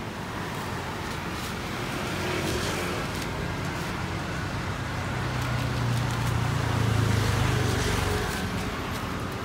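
Street traffic: a motor vehicle's engine hums low and swells to its loudest about seven seconds in, then fades, over a steady roadside din.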